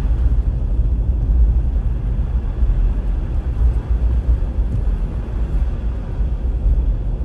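Car driving on a snow-covered road: a steady low rumble of tyres and engine.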